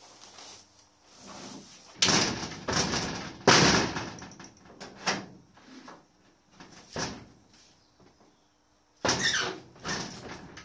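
A door banging and rattling: loud bangs about two and three and a half seconds in, smaller knocks after, and another loud burst near the end.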